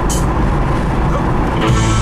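Road and engine noise inside a moving car's cabin, with music playing from the car's CD player; a held chord comes in near the end.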